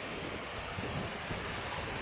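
Steady wash of sea surf breaking and running up the beach, with wind rumbling on the microphone.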